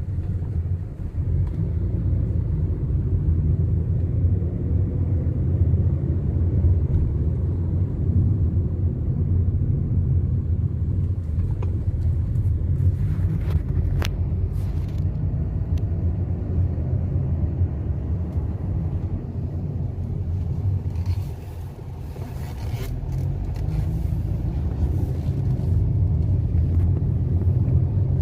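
Car driving on the road, a steady low engine and road rumble that eases off about two thirds of the way through and then builds again.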